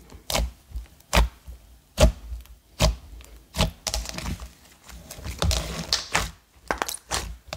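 Soft butter slime being kneaded and pressed by hand, giving sharp, irregular pops and clicks. The pops come about once a second at first and crowd together over the last couple of seconds.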